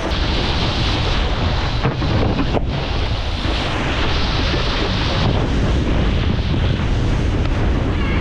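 Steady wind rush buffeting a head-mounted GoPro's microphone while wakeboarding at speed, mixed with the hiss of water spray from the board cutting across the surface.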